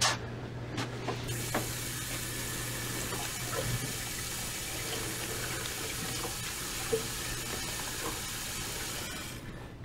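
Kitchen sink tap turned on and running steadily, then shut off near the end, over a steady low hum. A short knock comes at the very start.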